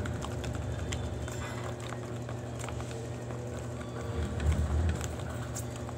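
Plastic spoon stirring and scooping soapy foam in a plastic tub, with light scrapes and small clicks over a steady low hum, and a dull bump about four and a half seconds in.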